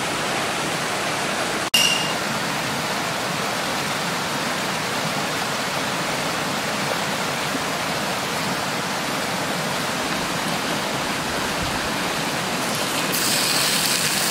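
Frying in a small pan on an Iwatani compact cassette-gas burner: a steady hiss of bread toasting in oil over the flame, with a brief dropout about two seconds in. Near the end a louder, brighter sizzle starts as raw bacon goes into the hot pan.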